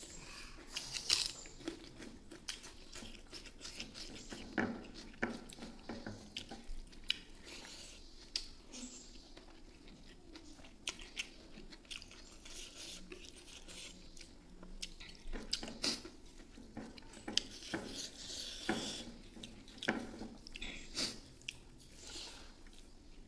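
Close-up eating sounds of a man eating rice and beef innards by hand: wet chewing and lip smacks with irregular small clicks, and the squish of his fingers working the rice.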